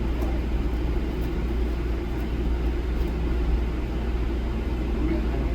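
A steady low rumble with no clear changes.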